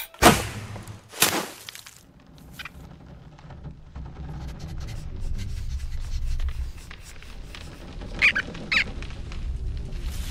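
Cartoon sound effects: two sharp swishing hits about a second apart at the start, fitting a bow being loosed and the arrow's flight. A low rumble then builds, with two short high squeaks about half a second apart near the end.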